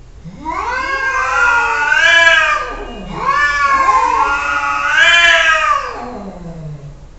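Cats yowling at each other in a face-off: two long, drawn-out caterwauls, each about three seconds, rising and then falling in pitch. This is the warning yowl of a territorial confrontation between two cats.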